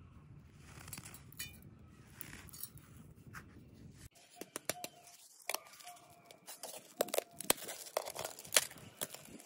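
A faint rustle of coarsely ground corn handled between the fingers. Then, about four seconds in, sharp knocks and clinks as potatoes are put into a stainless steel pot, several followed by a short ring of the metal.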